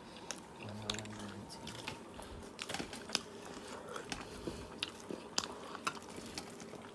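Someone chewing and biting food, with scattered small clicks.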